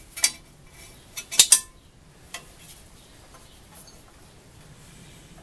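Sharp metallic clinks and taps of a hand tool against the sheet metal and fittings of a Briggs & Stratton small engine. There is a quick cluster of them in the first two seconds, loudest about a second and a half in, and one more soon after.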